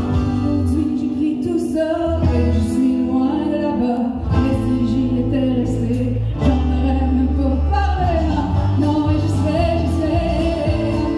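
Country-style song performed live: female vocals sung into handheld microphones over an amplified accompaniment with a steady bass line, heard through the stage sound system.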